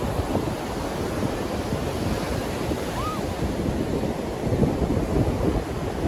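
Surf breaking and washing up a sandy beach, with gusty wind buffeting the microphone.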